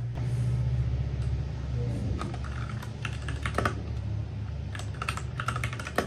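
Typing on a compact mechanical keyboard: quick key clicks start about two seconds in and grow busier toward the end, over a steady low hum.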